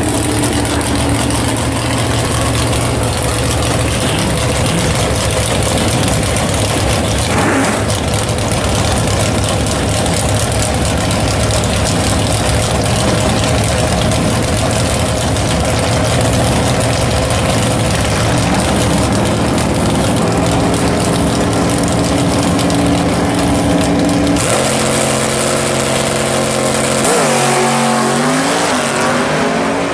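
Early Chevrolet Corvette drag car's engine running loud and steady at the starting line, its revs raised in steps late on. Near the end the car launches and the engine pitch climbs fast.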